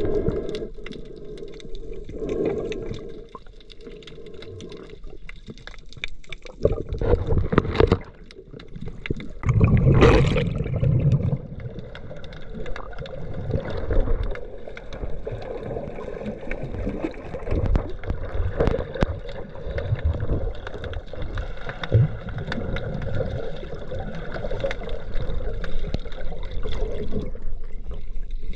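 Muffled underwater water noise picked up by a submerged camera: constant sloshing and gurgling, with louder rushes of bubbles and water about a quarter and a third of the way in.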